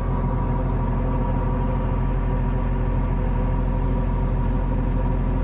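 Tractor engine running steadily, heard from inside the closed cab: an even low drone with a faint steady whine above it.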